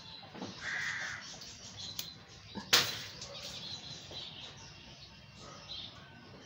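A green water balloon bursting with one sharp, loud pop a little under three seconds in.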